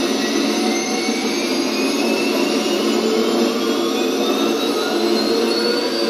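Turbine-engine sound from a scale RC 'Little Bird' helicopter's sound system: a steady jet whine whose pitch climbs slowly, as in a turbine spooling up.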